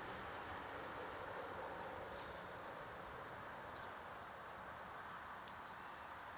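Steady outdoor background hum, with a single short, high-pitched chirp, likely a small bird, about four seconds in.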